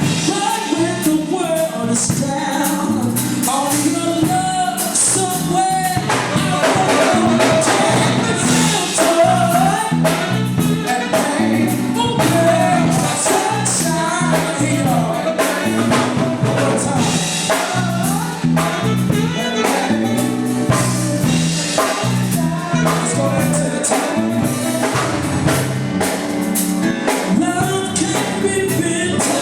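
Live band playing an R&B song, with singing over bass and a drum kit.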